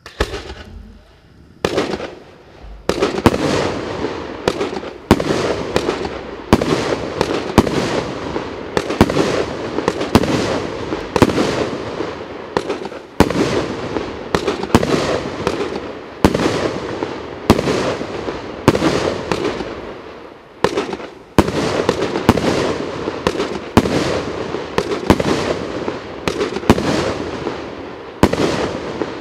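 A 19-shot firework cake of 30 mm tubes firing in a rapid series, a sharp bang roughly every second for about half a minute, with a continuous hiss of bursting stars and spark effects between the shots.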